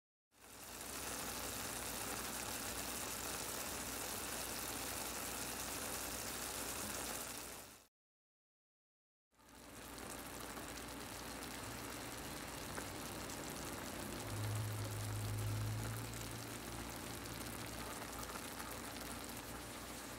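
Tomatoes, olives and egg sizzling and bubbling in a frying pan, a steady hiss that cuts out for about a second near the middle. A brief low hum comes in about two thirds of the way through.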